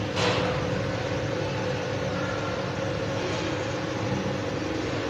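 Steady mechanical hum with several low held tones. A short rushing sound comes just after the start.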